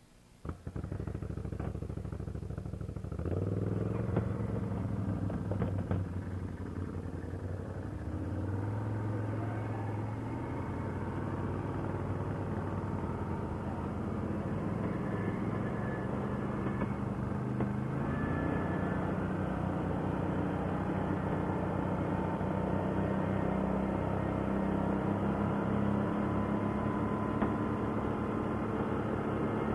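ATV engine running under way, its pitch rising and falling with the throttle. It starts abruptly about half a second in and steps up louder about three seconds in.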